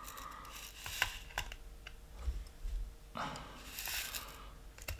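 Quiet handling of a brass percussion-cap capper against a black powder revolver's cylinder: a few small clicks about a second in, then a longer rubbing sound about three seconds in.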